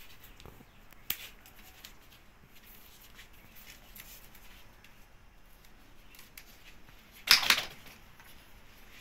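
Faint clicks and taps as a PVC conduit pipe with a plastic foot valve on its end is handled, with a sharper click about a second in and a short, louder scratchy noise about seven seconds in.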